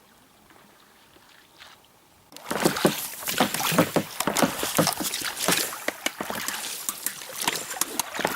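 Water splashing and sloshing close to the microphone, starting suddenly a little over two seconds in after a faint start, as a loud, irregular crackle of many small splashes.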